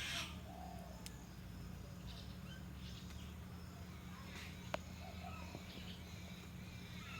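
Small birds chirping and calling faintly at intervals, over a steady low hum, with one sharp click about two-thirds of the way through.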